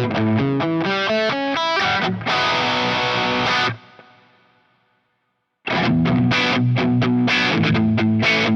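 Covenant Tradition T-SP electric guitar with humbucking Alnico V pickups, played through distortion. A fast riff runs for about two seconds, then a chord rings for over a second and is choked off. After about two seconds of near silence, the riff starts again.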